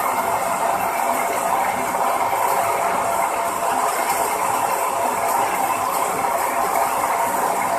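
Tyre stretch wrapping machine running steadily as its ring shuttle turns through a bicycle tyre, winding film around it, with a continuous, even mechanical noise of the gear and roller drive.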